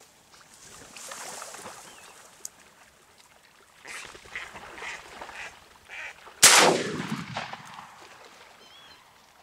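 A duck quacking in a quick run of short calls, then a single loud shotgun shot about two-thirds of the way through, its report fading away over about a second.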